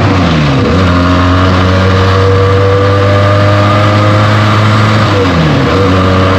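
Benelli TNT 300's 300 cc twin-cylinder engine through its stock exhaust, running loud and steady under way. The engine note drops sharply and recovers twice, about half a second in and again about five seconds in, as on gear changes.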